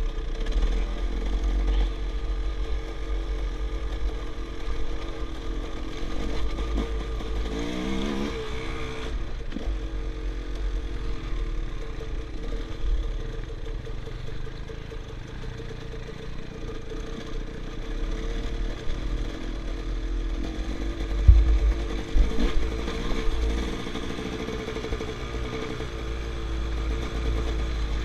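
Enduro dirt bike's engine running over rough, rocky trail, heard from the rider's helmet camera with low rumble and knocks from the ground. The revs rise briefly about eight seconds in, and there is a heavy thump a little past the 21-second mark.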